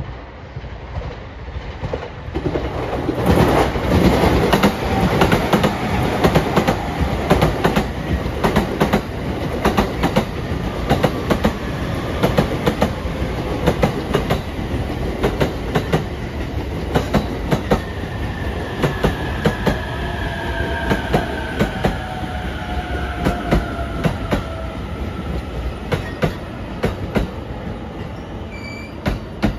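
JR Utsunomiya Line commuter electric train pulling into a station at moderate speed: its wheels beat out a long run of clacks over the rail joints. A faint falling whine joins in about two-thirds of the way through.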